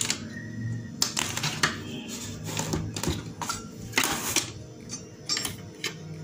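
Irregular clicks and rattles of plastic wire connectors and cable harnesses being handled and unplugged from a CRT TV's chassis board, over faint background music.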